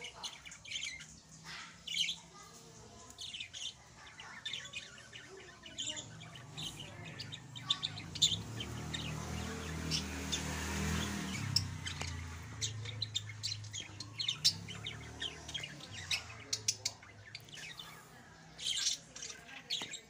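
Budgerigars chirping: many short, high chirps throughout. A low hum swells and fades through the middle.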